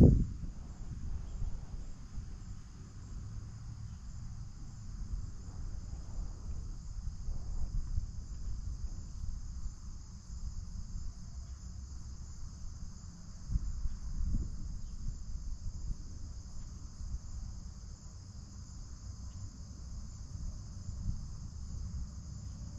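Steady high-pitched chorus of insects chirring without a break, over a low rumble, with a low thump right at the start and a softer one about fourteen seconds in.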